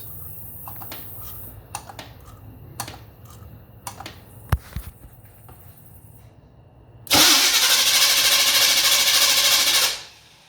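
A few scattered clicks and knocks, then the engine's starter cranks it steadily for about three seconds and stops without the engine ever firing. This is a crank-no-start condition on a freshly rebuilt Edelbrock 1405 carburetor.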